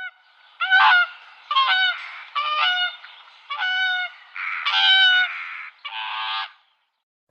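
Swan giving a series of about six loud, nasal honking calls, each under a second long, with short gaps between them. The calls stop a little over six seconds in.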